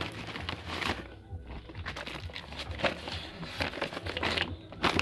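Hands pressing and stirring loose soil inside a woven plastic rice sack: the sack rustling and crinkling with soft, scratchy scrapes of soil, in irregular strokes.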